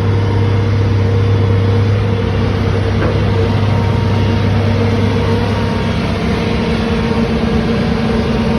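Construction machine's engine running steadily, its note shifting about six seconds in as the deepest hum fades and a higher tone comes up.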